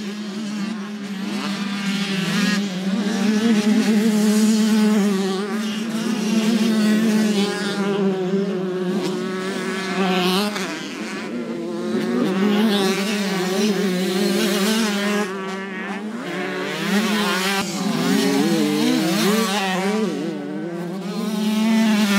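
Two-stroke motocross bikes racing past, their engines revving up and down in repeated surges as the riders work the throttle through the turns and jumps, with more than one bike heard at once.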